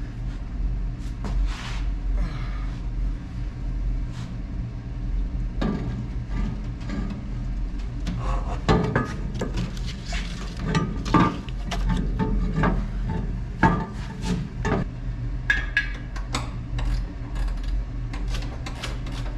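Irregular clanks, knocks and scraping of steel frame parts being handled and fitted together, busiest in the middle, over a steady low hum.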